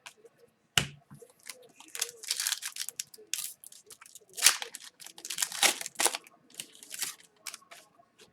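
A trading card pack's wrapper being torn open and the cards slid out and handled: a run of short ripping, crinkling swishes, with a sharp click just under a second in.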